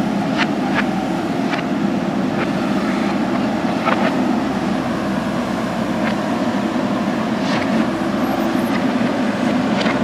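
JCB backhoe loader's diesel engine running steadily under work, with scattered sharp metallic clicks and knocks from the moving bucket and arm.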